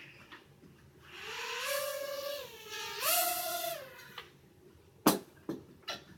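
Small toy quadcopter's motors whining up in pitch, holding, and winding down, twice in a row. A sharp knock about five seconds in is followed by a couple of lighter clicks.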